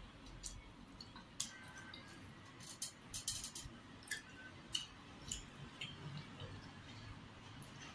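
Eating rice and fish with the fingers from a plate: faint, scattered small clicks and smacks at irregular intervals, with a short cluster of them about halfway through.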